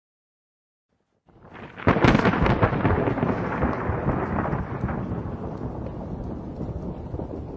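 A thunderclap: a sudden crackling crash about two seconds in, then a long rumble that slowly fades away.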